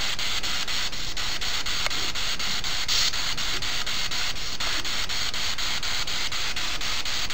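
Ghost-hunting spirit box sweeping through radio stations: a steady radio static hiss broken by quick, even scan clicks, about five a second.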